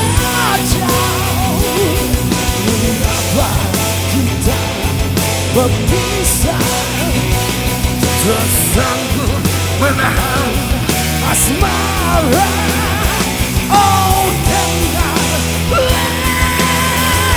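Rock band playing a song live, loud and continuous, with steady bass under bending melodic lines.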